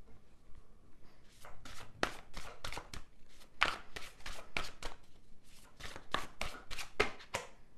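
A run of irregular sharp clicks and taps, roughly four a second, starting about a second in and stopping just before the end.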